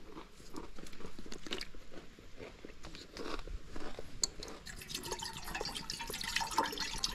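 Crunching on a tortilla chip, then about five seconds in, water poured from a plastic bottle into a small stainless steel pot, splashing and trickling.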